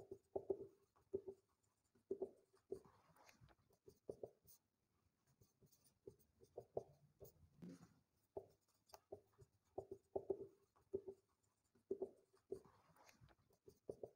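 Marker pen writing on a whiteboard: a faint run of short squeaky strokes, one for each letter and line, with brief pauses between words.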